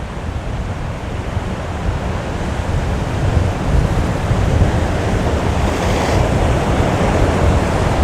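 Strong wind buffeting the microphone as a low rumble over the rush of heavy surf, growing louder over the first few seconds, with a surge of breaking surf about six seconds in.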